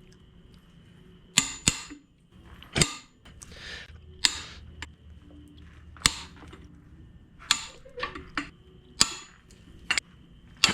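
Main bearing cap bolts on a Honda K24A2 block being broken loose with a hand wrench: a string of sharp metallic cracks, about one every second, with short scraping sounds between them.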